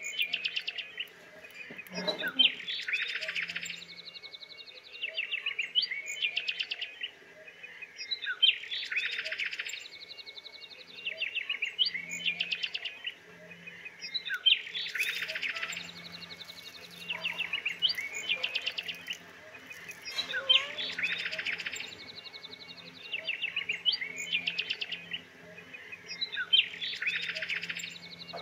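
Bird song: a rapid trilled chirping phrase repeated about every three seconds.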